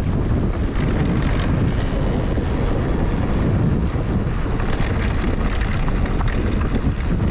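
Wind rushing over the microphone while a mountain bike rolls over a rocky dirt trail, with small scattered clattering knocks from the bike.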